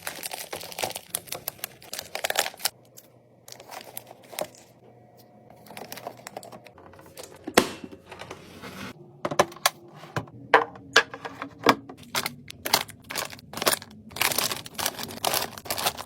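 Packaging crinkling and rustling, with many sharp clicks and knocks as drinks and snacks are handled and set into a mini fridge. A few of the knocks in the second half ring briefly.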